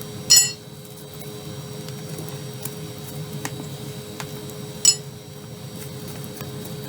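Steady hum of the wood-fired boiler's motor, which runs when the fire is hot, with two sharp metal clinks, one near the start and one about five seconds in, and a few faint ticks.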